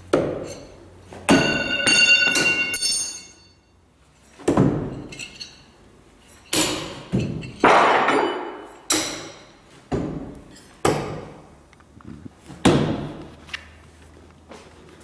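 Thrown knives striking wooden log targets in a series of a dozen or so thunks, one every second or two, echoing in a large hall; a few hits early on ring metallically.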